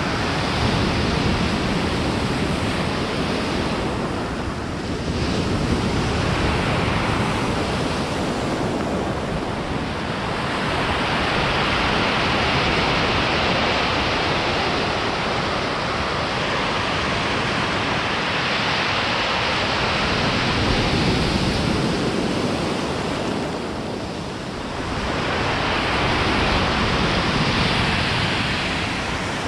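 Ocean surf breaking and washing up a pebble beach: a continuous rush that swells and eases as each wave comes in and draws back over the stones.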